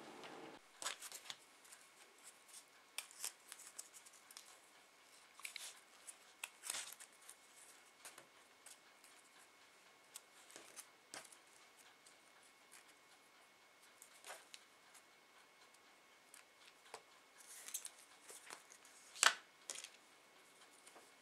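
Hands handling tissue-paper flowers and wired leaf stems: scattered soft rustles and small sharp clicks, with the loudest click about 19 seconds in.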